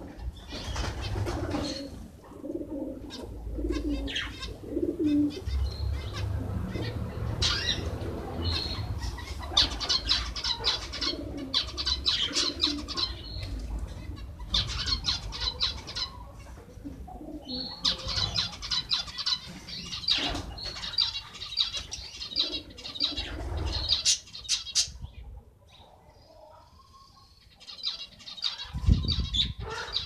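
Zebra finches chirping and chattering in quick bursts of high notes, with wings fluttering now and then. The chatter drops away for a few seconds near the end, then resumes.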